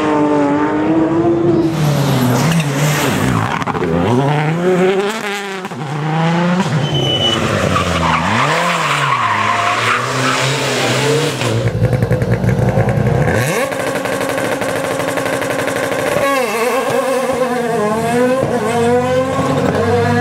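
Rally car engines revving hard, the pitch climbing and dropping sharply again and again through gear changes and lifts off the throttle. A spell of loud hissing tyre and skid noise runs through the middle, and near the end an engine holds a steady high note before revving up and down again.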